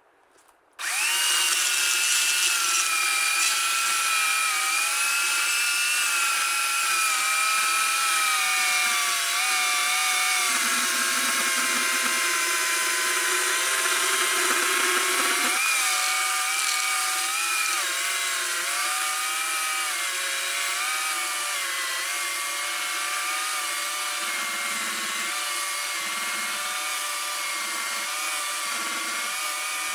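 Oregon CS1500 15-amp electric chainsaw starting about a second in and cutting through a large log. Its motor whine sags and wavers in pitch as the chain bites into the wood.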